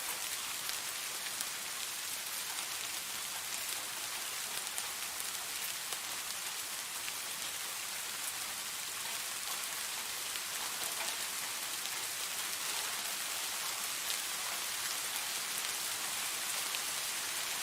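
Steady rain falling, an even hiss with individual drops ticking here and there.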